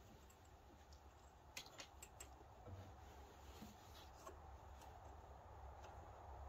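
Faint scattered clicks and rubbing of hands tying back loose wiring on an ATV's rear rack, over a low steady rumble.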